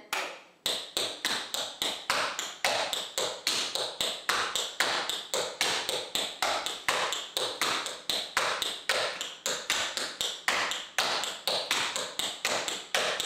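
Tap shoes' metal taps striking a tap board in a fast, even run of sharp clicks, about four a second, starting just under a second in.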